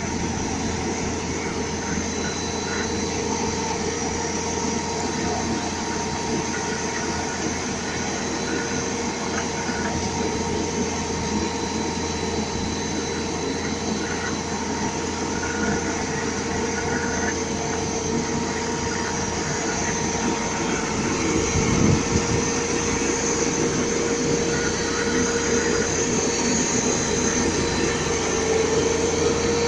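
Skid steer loader running a hydraulic debris blower attachment: a steady rush of blown air with a fan whine over the loader's engine. There is a brief low thump about 22 seconds in.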